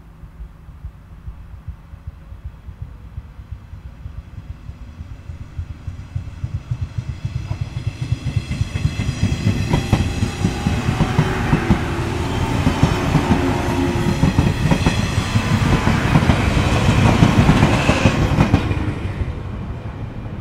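JNR 475-series electric multiple unit pulling away and running past, its wheels clattering over the rail joints ever faster and louder, with a high whine over the clatter. The sound peaks near the end as the cars go by, then quickly falls away.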